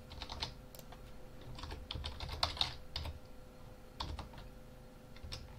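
Typing on a computer keyboard: irregular runs of keystrokes, busiest about two to three seconds in, over a faint steady hum.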